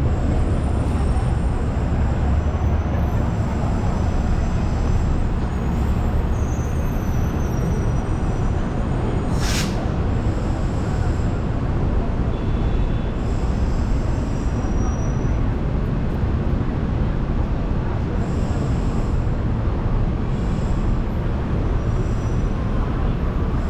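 City street traffic noise with a steady low engine rumble from heavy vehicles, and one short sharp hiss about nine seconds in.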